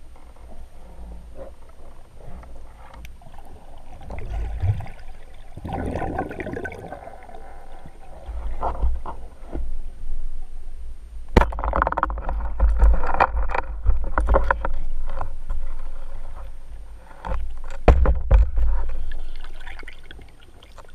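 Water rushing and gurgling over an underwater camera housing as a free-diving spearfisher swims, with a steady deep rumble and swelling washes of noise. A sharp click sounds about halfway through and again a few seconds later.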